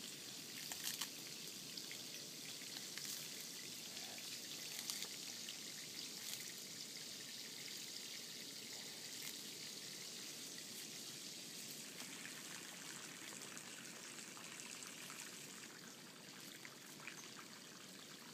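Steady trickling of water, with scattered faint clicks and crunches as a Galapagos giant tortoise bites and chews leaves.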